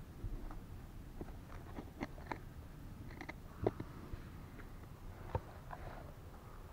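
Hand scraping and scooping loose soil and small stones out of a hole, with scattered crunches and small knocks of grit and pebbles; two sharper knocks stand out around the middle.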